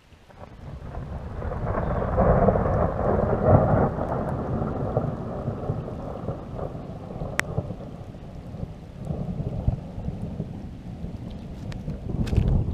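Rolling thunder: a low rumble that builds over the first two seconds, peaks, fades slowly, and swells again with another roll near the end. Rain falls on the lake underneath.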